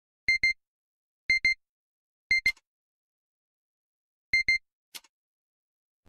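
Electronic beeping: quick pairs of a short, high beep, one pair each second for three seconds, then a pause and a fourth pair. A sharp click follows the third pair, and another comes about half a second after the last pair.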